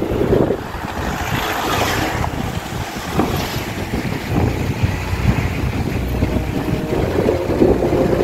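Wind buffeting the microphone: a loud, gusty rumble that rises and falls throughout.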